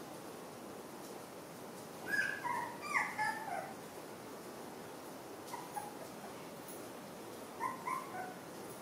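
Young puppy whimpering: short, high squeaky whines in little clusters, several about two seconds in, a few faint ones in the middle and another cluster near the end.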